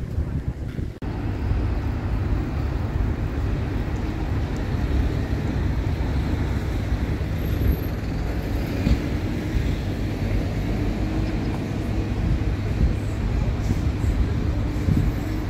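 A steady low rumble of outdoor noise that dips briefly about a second in.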